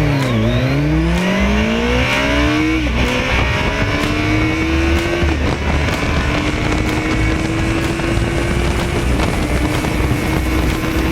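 Kawasaki ZX14's inline-four engine revved up and down a few times, then held at a steady higher speed, its pitch dipping briefly twice.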